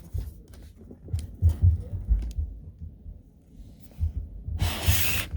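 Handling noise while a laptop is being unpacked and opened: irregular low, muffled thumps and a few soft clicks, then a short rushing noise near the end.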